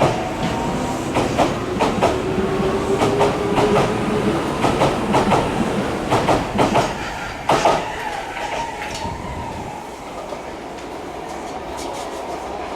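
Osaka Metro 400-series train on the move: the motors' whine rises slowly in pitch as it picks up speed while the wheels click over rail joints in quick pairs, then the clicking stops about two-thirds through and the sound fades as the train draws away.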